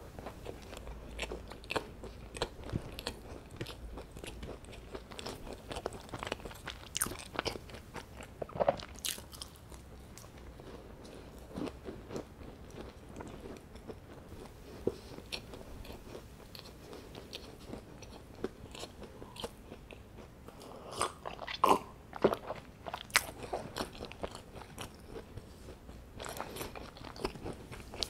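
Chewing and biting a chocolate scone with chocolate chips, nuts and raisins: a run of short, crisp crunches and small clicks, with a louder cluster of crunches about two-thirds of the way through.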